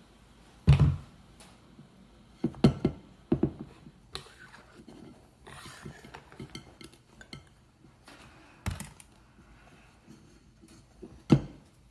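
Tire levers and the scooter wheel clinking and knocking as a new tire is worked onto the rim: about five sharp knocks spread through, with lighter clicks between.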